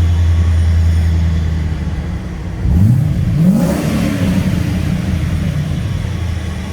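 Holden 5.0 litre V8 with an upgraded exhaust idling, then revved twice in quick succession about halfway through, the pitch rising and falling, before settling back toward idle.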